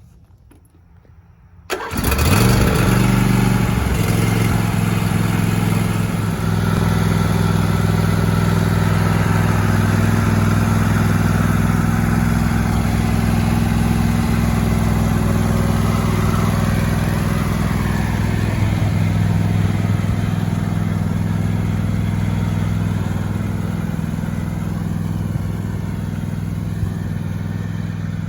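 John Deere D140 lawn tractor engine starting abruptly about two seconds in, then running steadily, a little quieter near the end.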